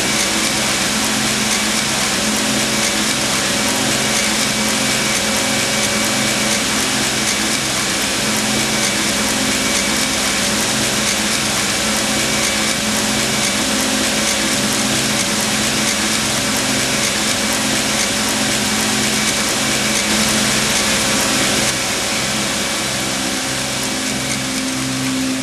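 Industrial knitting machine running: a steady, dense mechanical clatter with a regular low pulse repeating a few times a second.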